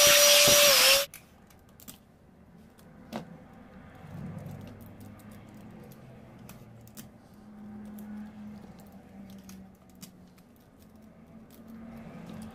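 An electric air blower runs loudly with a steady whine, drying the cleaning spray off a freshly soldered battery circuit board, and cuts off about a second in. Quiet clicks and rustling follow as gloved hands handle the wires and the plastic battery case.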